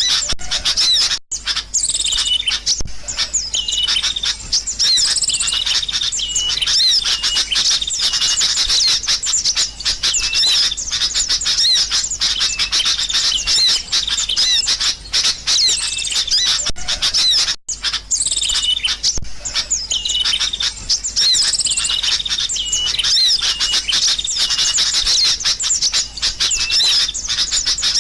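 A flock of sooty-headed bulbuls (kutilang) calling noisily together: a dense, overlapping chatter of high chirps and short whistled phrases. The sound drops out briefly about a second in and again past the middle, where the same stretch of calls repeats.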